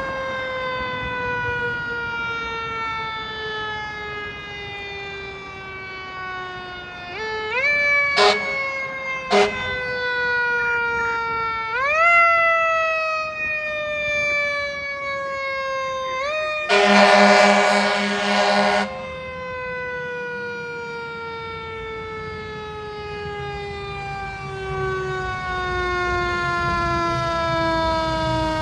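A fire engine's siren sounding continuously. Its pitch is wound up in quick rises and then falls slowly between them. Two short horn toots come about 8 and 9 seconds in, and a two-second horn blast about 17 seconds in.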